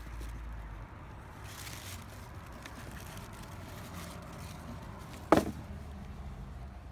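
Tissue paper rustling and a cardboard shoe box being handled as hands rummage inside it, with one sharp knock about five seconds in.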